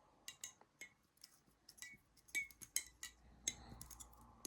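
Balisong (butterfly knife) being flipped: a string of light, sharp metallic clicks and clinks at uneven spacing as the handles swing and knock against the blade and each other.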